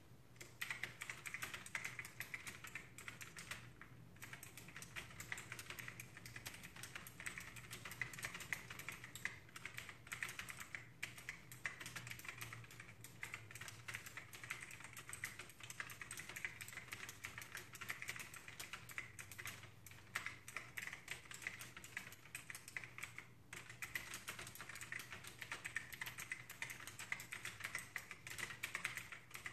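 Continuous fast typing on a backlit mechanical keyboard with round, typewriter-style keycaps: a rapid, unbroken stream of key clacks, pausing briefly about four seconds in and again about three quarters of the way through.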